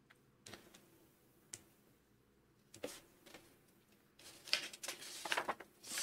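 Pages of a Bible being turned: a few soft separate flicks, then a busier run of page rustling from about four seconds in.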